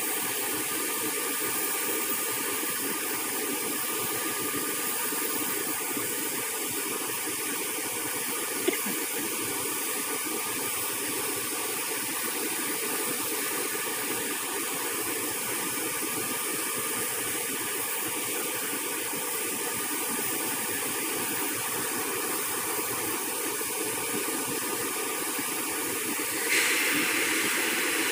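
Steady jet-turbine hiss with faint high whining tones from a parked airliner. There is a single click about nine seconds in, and near the end the hiss turns louder and brighter.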